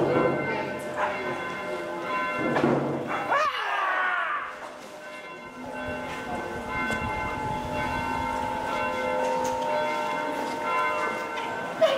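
Bells ringing, with many overlapping tones that hang on for seconds. A brief swooping sound comes about three and a half seconds in.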